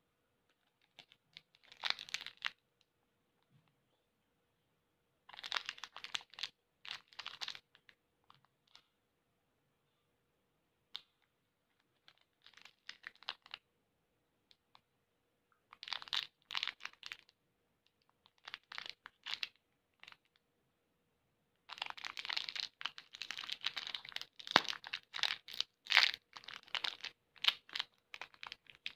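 Plastic wrapper of a Candyland Bubble Your Name bubble gum crinkling in short bursts as it is handled, then crinkling and tearing almost without pause over the last seven seconds or so as it is unwrapped.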